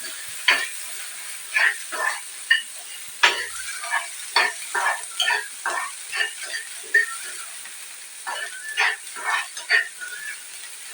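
Food frying in a pan of hot oil, sizzling with irregular sharp spits and crackles, about one or two a second.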